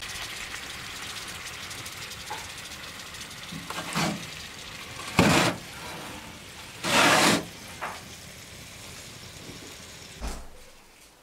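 Stuffed peppers sizzling in a black pan on a wood-burning stove's oven, a steady hiss that fades near the end. Several short, louder scrapes as the pan is slid back over the oven's metal floor, and a low thump near the end.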